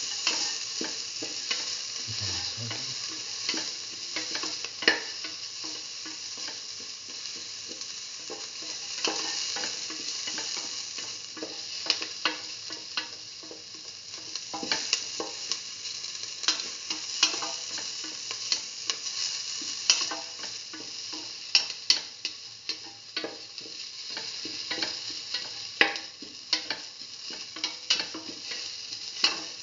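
Sliced onions frying in oil in a stainless steel pan with a steady sizzle. A spatula stirring them scrapes and taps the pan, making frequent sharp clicks that come more often in the second half.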